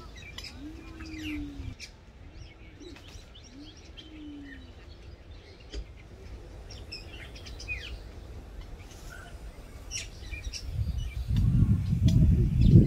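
Dove cooing: three low, arching coos in the first few seconds, with small birds chirping throughout. Near the end a loud low rumble rises.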